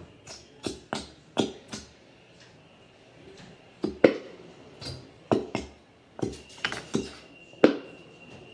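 Elmer's glue bottle being shaken and knocked to force out thick glue that won't pour: a string of sharp, irregular knocks in several quick clusters.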